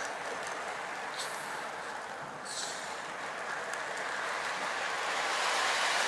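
Lionel model train cars rolling along the track with a steady rushing rattle of wheels on rails, two brief high clicks in the first few seconds, and a swell in loudness near the end.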